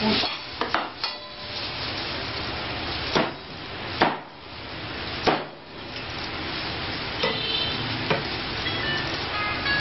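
Cleaver chopping food on a cutting board: about eight sharp, separate chops, irregularly spaced, over a steady hiss. A tinkling tune comes in near the end.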